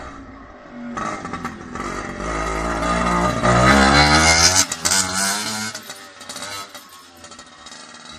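Cushman M53 replica motor scooter riding close past: its small engine grows louder, is loudest about three to five seconds in as its pitch drops while it goes by, then fades as it rides away.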